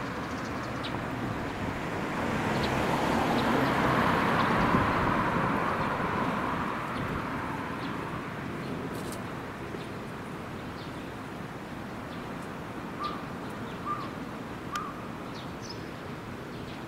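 Street noise from a passing vehicle, growing louder over the first few seconds and then fading away. After that, a bird gives a few short chirps, three in a row in the second half.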